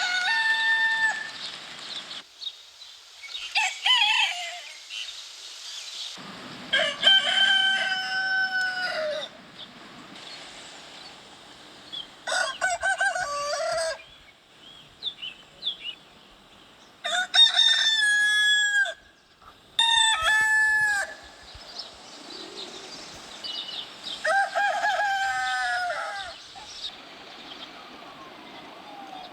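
Rooster crowing again and again: about seven separate crows, each one to two seconds long, spaced a few seconds apart.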